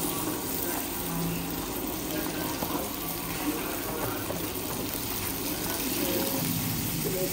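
Steady bubbling and sizzling of food cooking on the hob: pork pieces simmering in a steaming pot, with salted mackerel frying in oil in the pan beside it.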